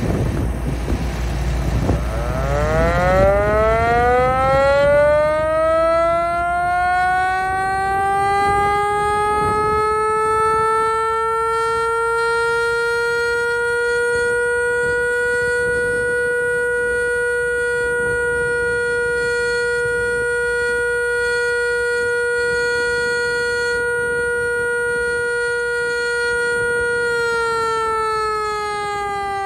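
WWII-era 6-volt Sterling "Free Rolling" motor-driven siren, powered by a Ford GPW jeep, winding up in pitch over about ten seconds to a steady wail. It holds that one pitch and starts to wind down near the end.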